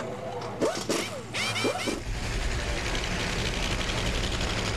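A few short rising and falling chirps, then about two seconds in a steady engine noise sets in and runs on evenly.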